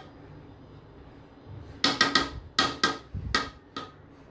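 A serving spoon clinking and scraping against the metal pot of dum biryani as the rice is turned. There is one clink at the start, then a quick run of about six clinks in the second half.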